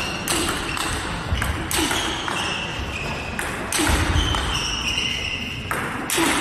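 Table tennis rally: the celluloid-type plastic ball clicking sharply off rackets and table at irregular intervals, with high squeaks of shoes on the court floor and a few dull foot thumps.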